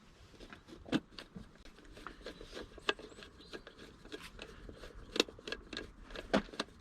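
A Phillips screwdriver turning a screw into a distributor cap: soft scraping with a few sharp metal clicks, four of them clearest.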